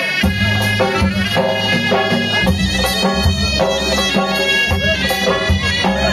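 Live Tunisian folk wedding music in an instrumental passage: a reedy wind-instrument melody of held notes over a regular drum beat, with no singing.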